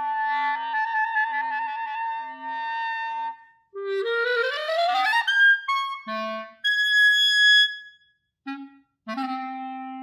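Solo clarinet playing extended techniques. A held multiphonic (two pitches at once) with a wavering upper part gives way to a rising glissando about four seconds in. Then come short notes, a high note held for about a second, a brief pause, and another multiphonic near the end.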